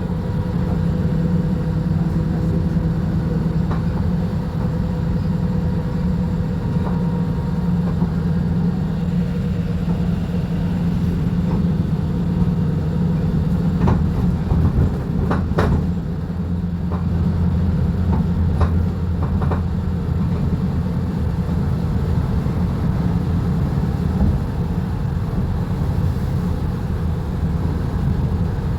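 Volvo B290RLE city bus engine running under way, a steady low hum whose pitch drops about halfway through, with a few short clicks and rattles in the middle.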